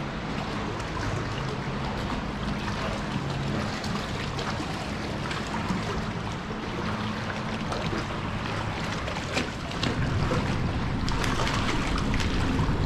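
Water splashing and lapping as a hooked fish is brought in to the bank, over a steady low hum. The splashing grows sharper and louder from about ten seconds in.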